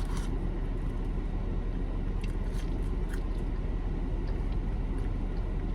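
Steady low rumble of a car heard from inside the cabin, with a few faint clicks of chewing.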